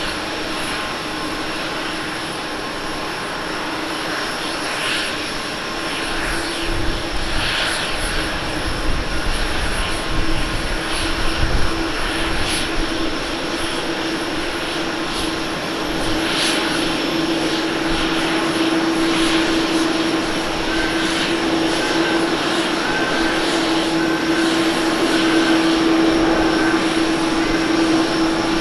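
Engines of an All Nippon Airways Boeing 787-10 Dreamliner running as it lands, a steady jet hum with one held tone, growing somewhat louder in the second half.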